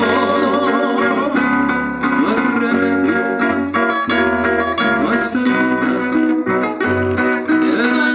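Several acoustic guitars playing a song live through a PA system, strummed and plucked.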